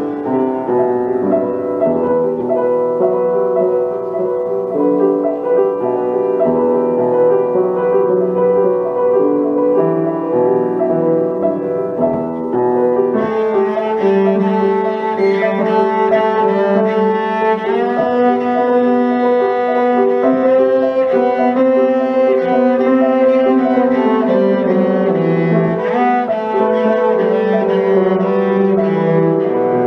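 Cello and piano playing a classical cello sonata, the cello holding long bowed notes over the piano. About thirteen seconds in, the music grows fuller and brighter.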